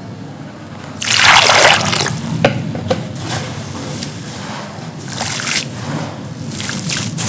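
Soft, dusty dried clay pot crumbling and crunching, in gritty bursts that begin about a second in and come again twice more, with a couple of sharp small snaps.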